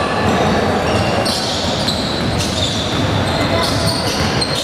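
Basketball game in a gym: the ball bouncing on the court and several short, high sneaker squeaks, over a steady hum of voices in the hall.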